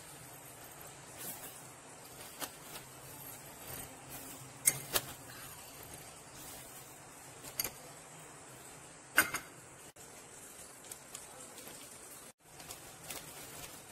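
A metal spoon and glass dishes being handled: a few sharp clicks and clinks, the loudest about five seconds and nine seconds in, with softer taps between.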